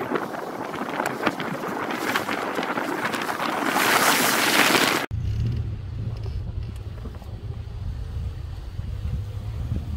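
Wind rushing over the microphone from a vehicle moving along a wet dirt track, building up about four seconds in. Just after halfway it cuts off abruptly to a low, steady rumble.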